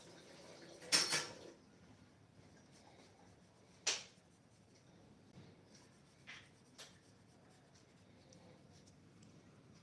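Colored pencil strokes scratching softly on paper while shading, with a louder scratch about a second in and a sharp click near the middle.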